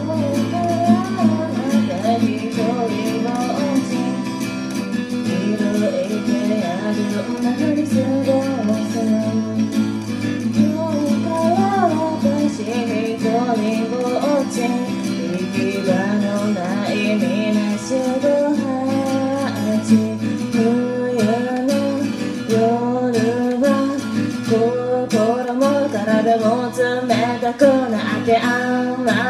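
A woman singing a song while accompanying herself on an acoustic guitar.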